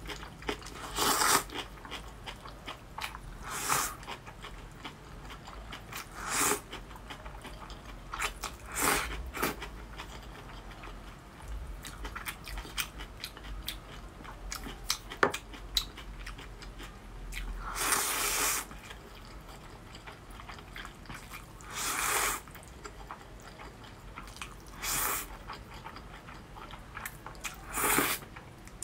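A person slurping spicy stir-fried instant noodles in short bursts every few seconds, with the longest slurp about two-thirds of the way through, and soft chewing in between.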